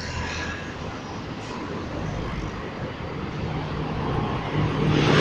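Mercedes-Benz city bus approaching and drawing up close, its engine running with a steady low hum and tyre noise that grow louder toward the end, over general road traffic.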